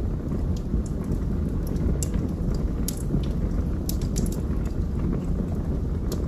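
Wood burning in a fireplace: a steady low rush of flames with sharp crackles and pops scattered irregularly, several close together near the middle.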